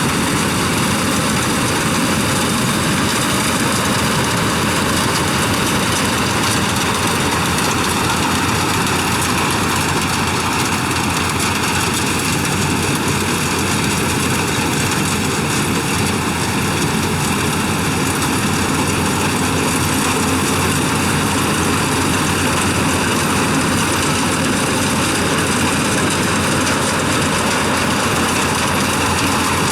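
Yanmar combine harvester running steadily as it harvests rice, a continuous loud mechanical drone with no change in pitch or level.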